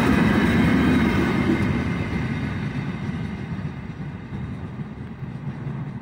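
Freight train wagons rolling past on the rails with a low rumble that fades steadily over the few seconds as the train moves away.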